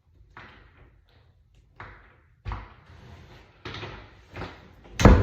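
Knocks and rattles of a doorknob set being fitted and worked on a door, then the door shutting with a sharp loud bang near the end.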